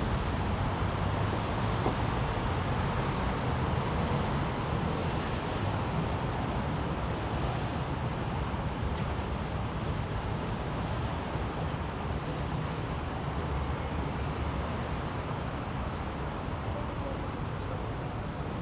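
Steady road traffic on a busy city street: a continuous wash of engine and tyre noise with no single vehicle standing out.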